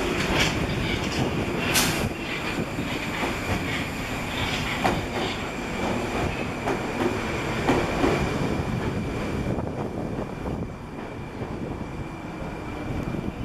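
Moscow Metro train running through the station without stopping: a heavy rumble with wheels clattering over the rail joints. The sound fades after about nine or ten seconds as the train clears the platform.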